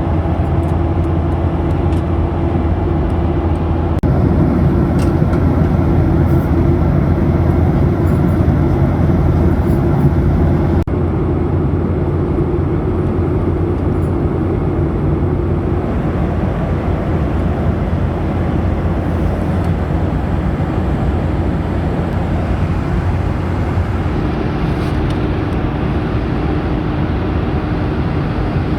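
Steady cabin noise inside a Boeing 737-900ER, with the low drone of its CFM56 engines and rushing air. A held tone in the drone dips slightly about eleven seconds in and settles lower near the end.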